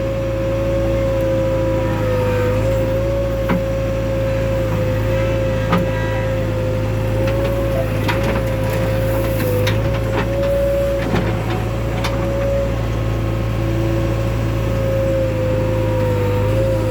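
JCB 3DX backhoe loader's diesel engine running steadily under work, with a constant high whine over the low engine rumble. Scattered knocks and clatters come mostly in the middle, as mud is loaded.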